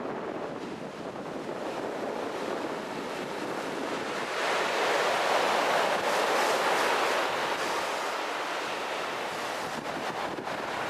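Ocean surf breaking on the shore, one wave swelling about four seconds in and washing out over the next few seconds, with wind buffeting the microphone.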